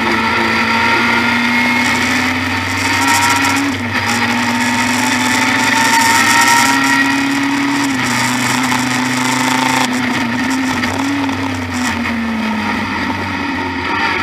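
Engine of a Group A BMW E30 M3 touring car racing, heard from inside the cabin. Its four-cylinder engine note climbs and falls through the revs, with short breaks at gear changes around 4 and 8 seconds in, then drops away near the end as the car slows.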